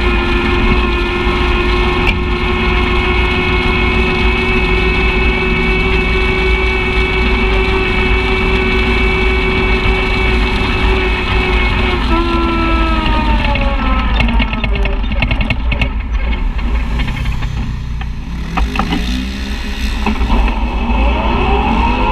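Side-by-side UTV engine running at a steady cruising speed, then easing off about halfway through, its pitch falling for several seconds, before it picks up again near the end as the machine accelerates.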